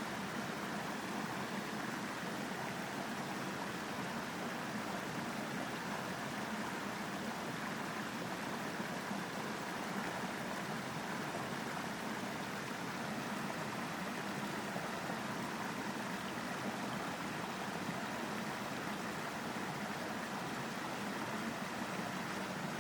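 Mountain stream running over rocks: a steady, even rush of flowing water.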